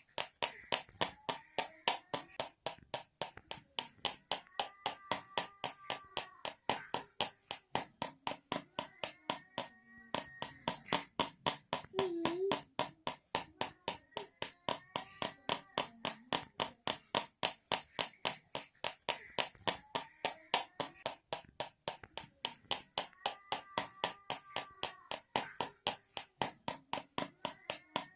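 Homemade rattle made of two tins, shaken in a steady rhythm of about four sharp clicks a second.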